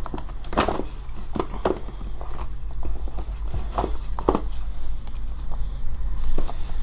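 Cardboard box set and printed inserts being handled and shifted on a tabletop: scattered rustles and soft taps over a steady low hum.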